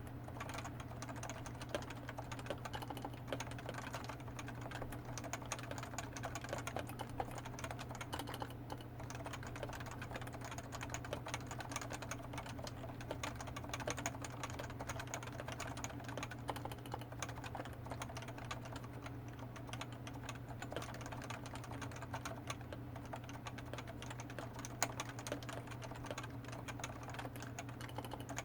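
Continuous fast typing on a Topre Realforce 87u tenkeyless keyboard with 45 g electrostatic capacitive switches and PBT keycaps: a steady run of keystrokes with no pauses.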